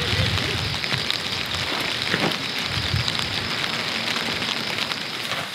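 Steady rain falling and pattering on surfaces, with many small drop ticks.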